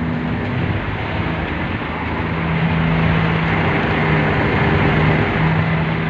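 Large truck's diesel engine running close by, a steady rumble with a low hum.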